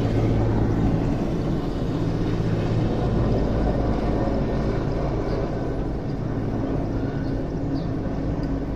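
Air force helicopter carrying a slung water bucket flying over the city, its rotor and engines a steady low drone that slowly fades as it moves away.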